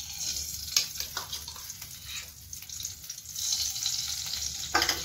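Ghee heating and sizzling in a nonstick kadhai, with a few short clicks of a spoon against the pan as it is stirred. The sizzle gets louder past the middle as the ghee gets hot.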